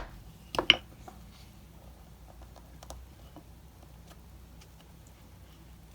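Two light taps of a hammer-struck leather hole punch about half a second in, then faint scattered ticks of the punch and leather being handled.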